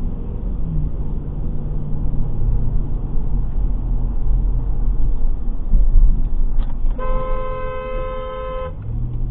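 Steady road and engine rumble of a moving car, then a car horn blows once, held for nearly two seconds, about seven seconds in.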